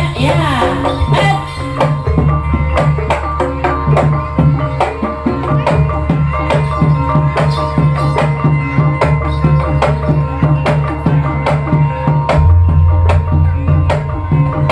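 Javanese gamelan accompaniment for an ebeg (kuda lumping) dance: rapid, steady hand-drum strokes over held metallic tones and a deep sustained bass note.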